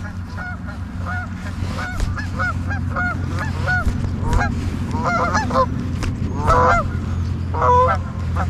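A flock of geese honking: many short, arched calls in quick succession, several birds overlapping, growing denser and louder after about five seconds. A steady low hum runs underneath.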